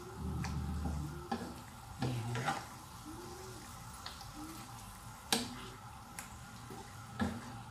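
Wooden spatula stirring sheep's liver and heart in a non-stick frying pan, scraping and knocking against the pan several times, the loudest knock about five seconds in, over a light sizzle of the meat frying in its juices.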